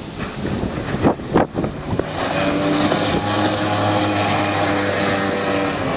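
Outboard motor on a small open boat running at high speed as the boat passes close by, its steady engine note coming in strongly about two seconds in. Before that, wind gusts buffet the microphone.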